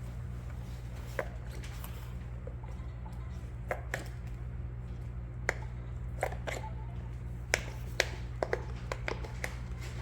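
Scattered soft clicks and pops at irregular spacing, typical of a silicone Pop It fidget toy's bubbles being pressed, over a steady low electrical hum.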